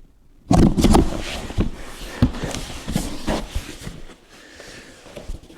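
Bumps, knocks and rustling of a large cardboard shipping box being handled, starting loud about half a second in after a brief quiet, then a scatter of sharper taps.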